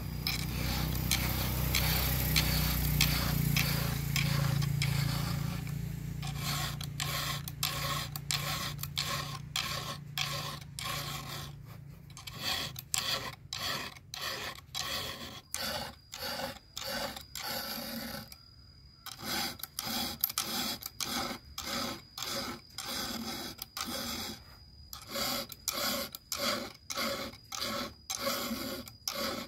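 Round chainsaw file rasping across the steel cutter teeth of a saw chain as it is sharpened by hand. For the first few seconds it scrapes continuously over a low rumble, then it goes in separate push strokes, about one to two a second.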